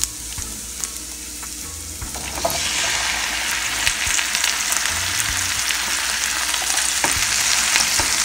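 Pork belly, onion and garlic sizzling in a hot frying pan; about two and a half seconds in the sizzle grows louder as wedges of bottle gourd (upo) go into the pan. A wooden spatula then stirs them, with scattered scrapes and light knocks against the pan.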